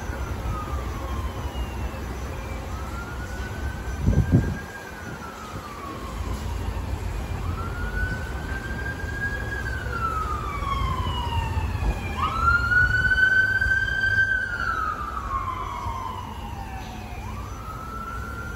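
A siren wailing, its pitch rising quickly, holding, then sliding down, repeating about every five seconds and loudest around two-thirds of the way through, over a steady low rumble. A single thump about four seconds in.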